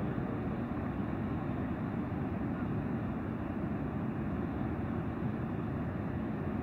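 Niagara Falls' water pouring over the falls, a steady low rush of unbroken noise.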